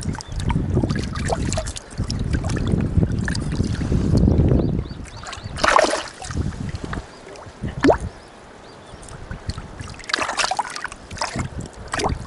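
Water splashing and sloshing as freshly caught fish are bled with a knife and rinsed by hand in shallow water, with louder splashes about six seconds in and again near the end. A low rumble fills the first five seconds.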